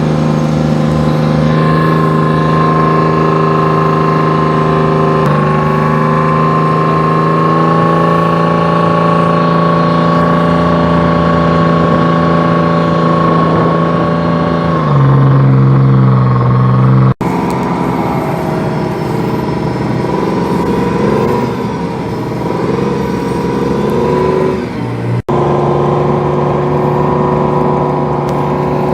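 Tank engine running while the tank drives, a steady drone with a high whine above it. About halfway through the note drops and swells louder, then varies and rises. The sound cuts out for an instant twice in the second half.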